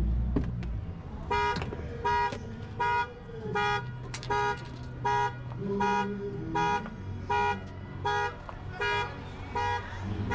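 Car alarm going off: the vehicle's horn honks in an even, repeating pulse, about four honks every three seconds, starting a little over a second in.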